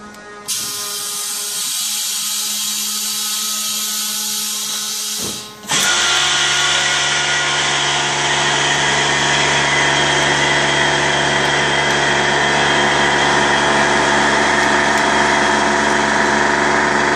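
Vacuum-forming machine at work. A loud hiss starts about half a second in and cuts off after about five seconds. Then the vacuum motor starts and runs steadily, drawing the heated plastic sheet down over the mould.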